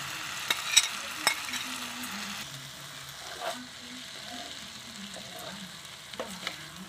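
A steel spoon stirring and turning cooked rice in a nonstick pan, with a sizzle from the ghee-coated pulao still on the heat. The spoon clicks against the pan a few times in the first second and a half, and the sizzle fades about two and a half seconds in.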